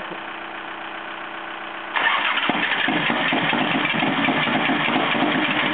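Harley-Davidson V-twin motorcycle engine being started: about two seconds in, a loud, rough engine sound cuts in over a quieter steady engine hum and runs for about four seconds before dropping away.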